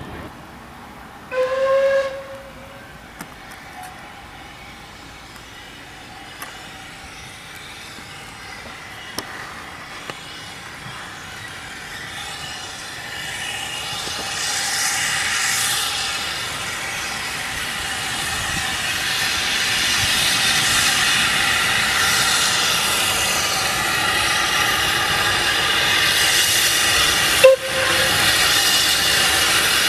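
A steam locomotive whistle sounds once, about a second long, near the start. Then a steam tank engine, Caledonian Railway No. 419 (BR 55189), an 0-4-4T, approaches: its steam hiss and exhaust grow steadily louder. Near the end comes one short, loud whistle pip.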